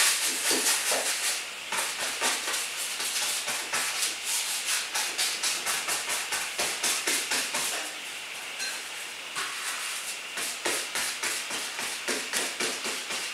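Bristle paintbrush dabbing and scrubbing paint onto a stretched canvas in quick, repeated scratchy strokes, about four a second, easing off briefly past the middle.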